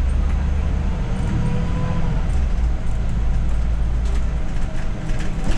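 Scania OmniCity city bus running along a street, heard from the driver's cab: a steady low engine and road rumble with a faint whine in the first couple of seconds, and light clicks and rattles from the bus's fittings toward the end.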